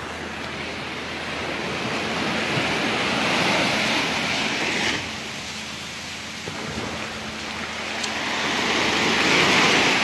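Small sea waves washing up the shore in a steady hiss that swells twice, the first surge building about two seconds in and dropping away suddenly at about five seconds, the second peaking near the end.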